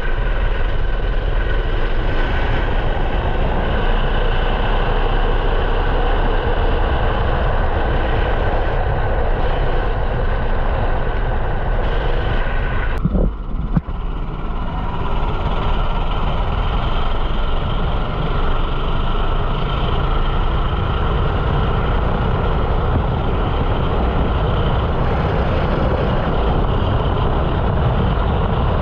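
A 13 hp four-stroke rental kart engine running hard, heard onboard; its note rises and falls with the throttle. About halfway through there is a sharp knock, and the engine note dips briefly.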